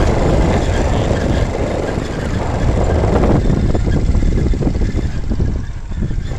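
Motorcycle running while being ridden, with heavy wind rumble on the microphone. The sound eases a little near the end.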